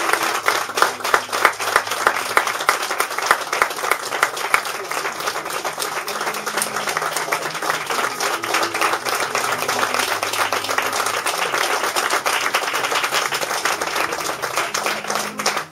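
Audience applause: many people clapping in a long, dense round, strongest in the first few seconds.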